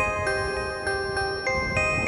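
Background music: a gentle melody of bell-like struck notes, about three a second, each ringing on.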